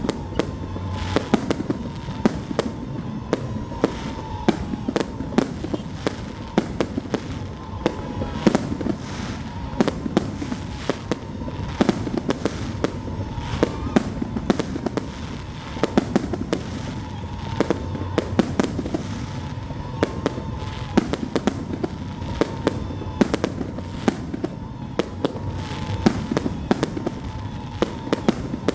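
Fireworks display: a dense, continuous run of sharp bangs and crackling reports, several a second, with louder booms now and then.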